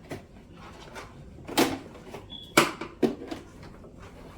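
Several knocks and clacks of pond vacuum accessory parts, such as the brush pole, being handled and set down, the two loudest about one and a half and two and a half seconds in.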